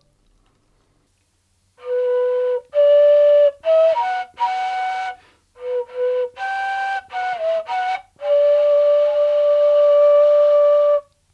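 Ney (end-blown bamboo flute) playing a short breathy phrase: it enters about two seconds in, plays a run of shorter notes that step up and back down with brief pauses, and ends on a long held note.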